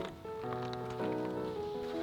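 Soft background music: gentle held notes that change every half second or so.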